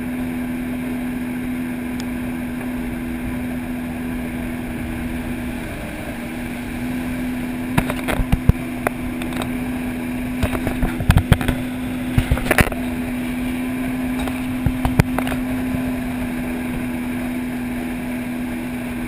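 Personal watercraft engine running at a steady cruise: a constant, even drone. A cluster of sharp knocks and clatters comes between about eight and fifteen seconds in.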